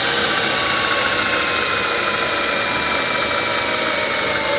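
DeWalt cordless drill running steadily under load, its bit boring through a steel fender bracket; the motor's whine sinks slightly in pitch as it goes.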